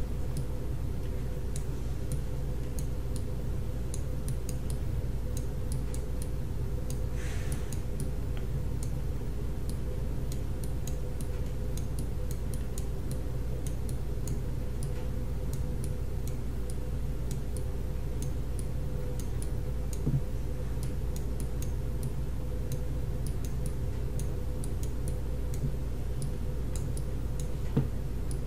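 A clock ticking steadily over a steady low electrical hum.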